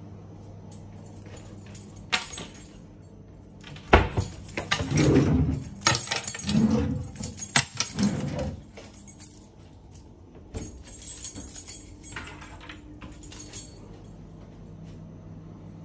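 Kitchen drawers and cupboard doors being pulled open and pushed shut by hand, giving sliding rumbles and clattering knocks. The noise is loudest between about four and eight and a half seconds in, with a few sharp clicks either side.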